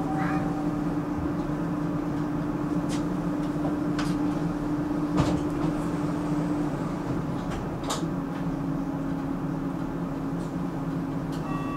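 Rotterdam metro train running, heard from inside the car: a steady motor hum over running noise, with scattered clicks and knocks. Short electronic signal tones at several pitches begin right at the end.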